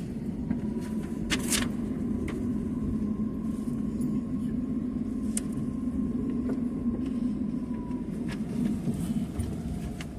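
Steady low rumble of a moving vehicle, with a faint steady tone and a few scattered clicks.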